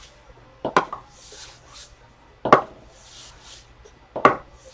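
Dice being rolled again and again onto a hard table, each landing a sharp clack, three times about two seconds apart, with faint rattling in between.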